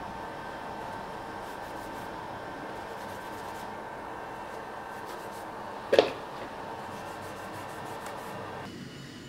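Steady workshop machine hum with one sharp knock about six seconds in, the loudest sound, as metal is handled at a bench vise. The hum stops near the end.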